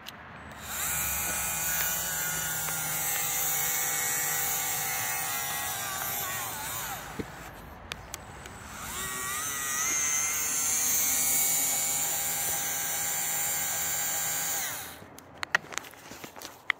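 A NAVAC cordless flaring tool's motor whining as it spins a flare onto the end of a copper refrigerant line. It runs twice, each run about six seconds, with a short pause between them, and the pitch shifts as each run slows or starts. A few sharp clicks near the end come from the tool being handled.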